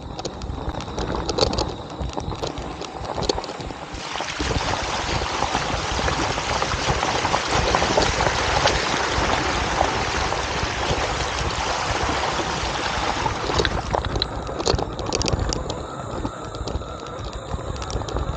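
Fat-tyre e-bike ridden along a dirt track: a steady rush of tyre noise over the ground, heavier from about four seconds in until a few seconds before the end, with scattered clicks and rattles from the bike over bumps.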